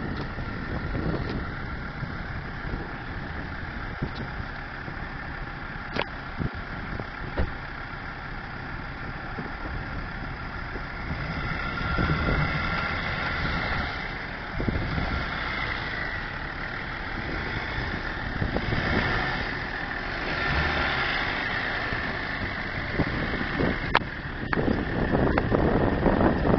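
Range Rover engine running at low revs as the SUV crawls over uneven ground in an axle twist, swelling a little in level a few times as it is given more throttle, with a couple of faint knocks.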